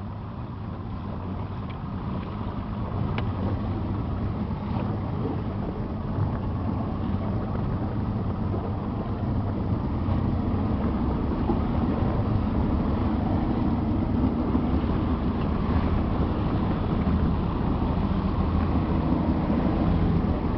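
Motorboat engine running steadily with the boat underway, a low even hum under a noisy rush; it grows louder over the first several seconds, then holds.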